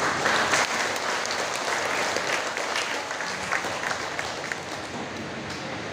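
Church congregation applauding: many hands clapping together at once, the clapping thinning out after about four seconds.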